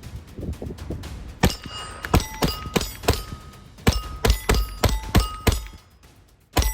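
A .22 LR Hammerli Forge H1 pistol firing a quick string of about a dozen shots of CCI Standard Velocity 40-grain ammunition, starting about a second and a half in, with one last shot near the end. Most shots are followed by a short metallic ring from a steel target being hit.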